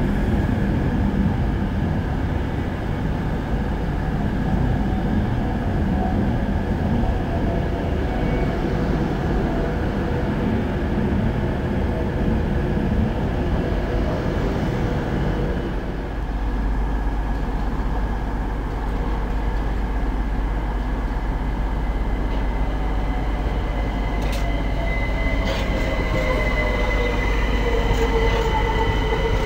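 Virgin Trains Class 390 Pendolino electric train running past into the platform, with a steady rumble of wheels on rails. About halfway through the sound changes abruptly to a London Overground Class 378 electric unit coming in, its wheels squealing in a wavering tone with a few sharp clicks near the end.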